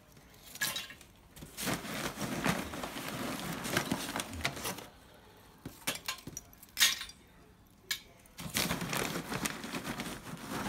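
Charcoal being added with metal tongs to a kettle grill's steel charcoal basket: scattered clinks and knocks of coals against each other and the tongs on the basket, loudest in a sharp click about seven seconds in.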